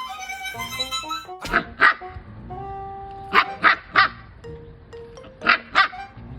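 A dog barking in short groups: two barks about a second and a half in, three more around three and a half to four seconds, and two near the end, with music playing underneath.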